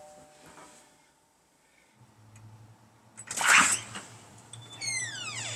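A doorbell chime fading out, then a front door being opened with a loud rattle about three and a half seconds in, followed by a short falling squeak.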